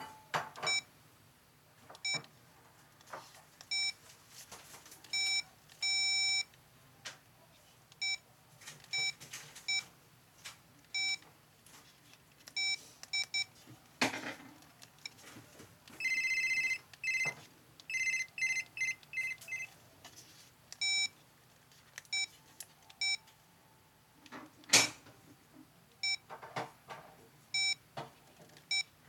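Motorola StarTAC analog cell phone beeping as its keys are pressed to step through the menus: short high beeps about a second apart, with a longer run of tones just after halfway. Two louder clicks stand out, one about halfway and one a few seconds before the end.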